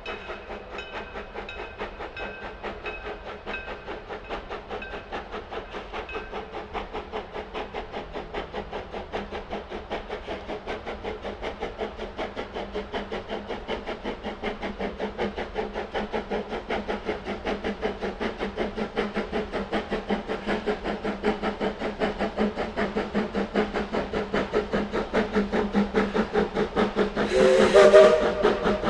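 1910 Vulcan 0-4-0 steam locomotive chuffing with an even, rapid exhaust beat as it works a train toward the listener, growing steadily louder. Near the end comes a short loud whistle blast with a rush of steam.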